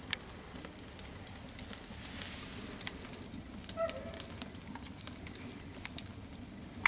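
Cherry-wood campfire crackling: sharp, irregular pops and snaps over a low steady hiss of the burning logs. A short faint tonal note sounds about four seconds in.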